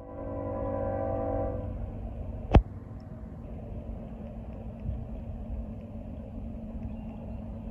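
Multi-chime air horn of an approaching CSX GE ES40DC locomotive sounding a held chord, cutting off about two seconds in. A single sharp click follows, then the low rumble of the train running toward the crossing.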